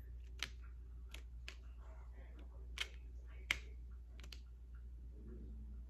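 Six or so short, sharp clicks and taps, unevenly spaced, over a faint steady low hum.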